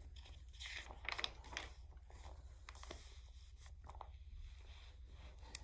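Faint rustling of a picture book's paper pages as a page is turned and the spread is smoothed flat by hand, with soft scattered crinkles and brushes.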